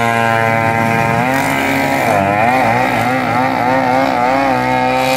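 Small motorcycle engine revved high and held there during a burnout, the rear tyre spinning and smoking. The pitch wavers a little as the throttle is worked.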